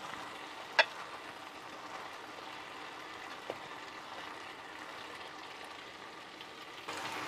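Masala gravy sizzling gently in a frying pan on low heat as fried chicken pieces are laid into it, with one sharp click about a second in.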